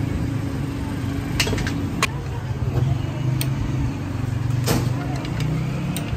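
Steady low rumble of a motor vehicle engine running, with about five sharp metallic clinks of hand tools on a Honda CD 100's exposed clutch assembly.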